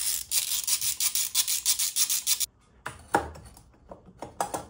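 Hands working on a stripped motorcycle engine's metal parts: a quick run of rubbing, scraping strokes lasting about two and a half seconds, then a pause and a few separate scrapes or knocks near the end.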